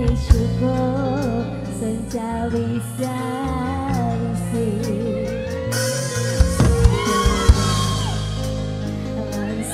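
Live dangdut band playing, with a woman singing the melody over bass and drums; from about six seconds in the cymbals come up brighter.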